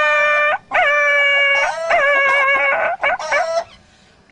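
A man's voice imitating a dog howling and yelping in pain, as a dog does when struck with a stick. There are three long, held howls, then a few short yelps, and the sound dies away shortly before the end.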